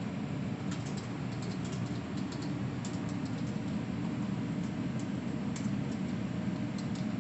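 Steady low rumble of office background noise, with scattered faint, light clicks at irregular times.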